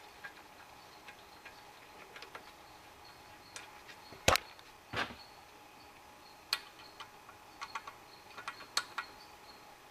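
Scattered small metal clicks and taps of a bolt and hex key being handled against the steel plate of a valve spring compressor on a Cummins 12-valve cylinder head. The sharpest click comes a little after four seconds in and a duller knock about a second later, then a few quick clicks near the end.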